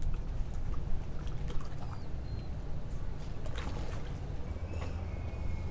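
Low steady rumble of a boat's motor with water sloshing and splashing against the hull.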